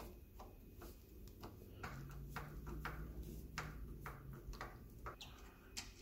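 A hand-turned Phillips screwdriver backs out the screws of a deadbolt latch faceplate in a wooden door edge, giving an irregular run of faint metal clicks as the tip turns and regrips in the screw heads.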